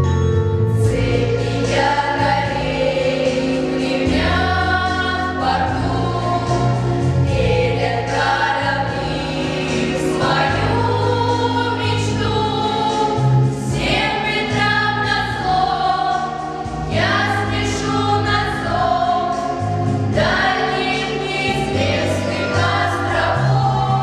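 A girls' vocal ensemble singing together over an instrumental backing track with sustained low bass notes.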